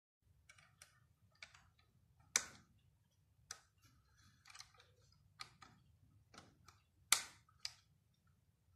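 Plastic LEGO parts and a Power Functions cable plug being handled: irregular small clicks and knocks, with two louder snaps, one about two and a half seconds in and one about seven seconds in.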